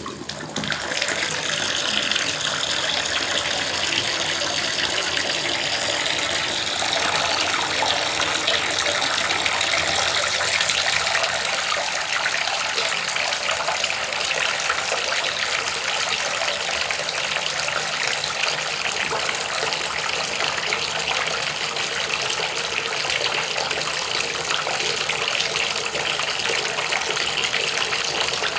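Running water gushing steadily, building up in the first second and then holding at an even level.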